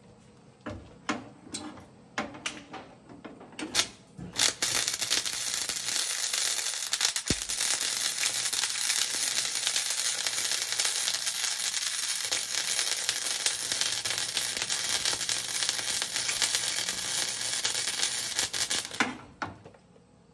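Arc welding on a truck's sheet-metal floor pan. A few short crackling bursts in the first four seconds are followed by a continuous crackling, sizzling weld for about fifteen seconds, which stops shortly before the end.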